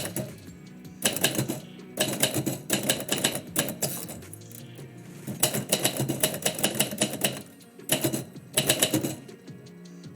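Typewriter keys striking in several bursts of rapid typing, with short pauses between the bursts. Background music with steady low tones plays underneath.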